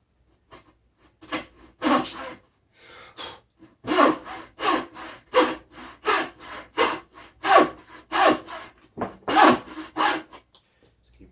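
Coarse-toothed hand hacksaw cutting through wood. A few rasping strokes, a short pause, then a steady run of back-and-forth strokes about three a second, stopping shortly before the end.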